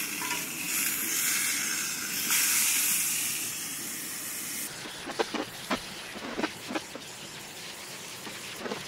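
Water running in a steady hissing stream as lettuce is washed under it, with the flow changing abruptly once and then shutting off about halfway through. Light clicks and knocks follow.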